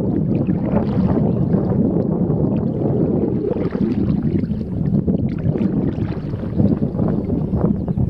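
Steady wind noise on the microphone mixed with the sound of river water around a kayak on the move.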